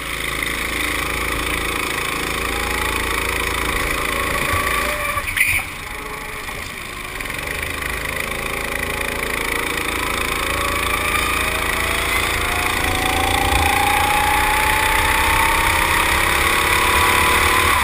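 Go-kart engine accelerating, its pitch climbing in long rising sweeps through the second half as the kart picks up speed. A sharp knock comes about five seconds in.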